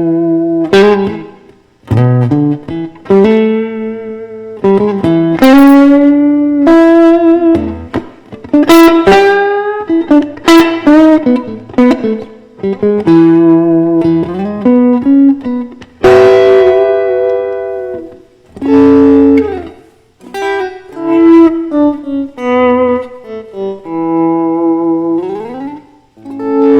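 Electric guitar, a Fender Stratocaster, playing a blues lead solo: single picked notes and short phrases that ring out and fade, with a string bend rising in pitch near the end.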